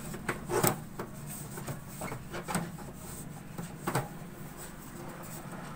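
A damp cloth rubbing and wiping inside an opened HP LaserJet laser printer around its paper pickup roller, with a few light plastic knocks and clicks. The sharpest knocks come about half a second in and at about four seconds.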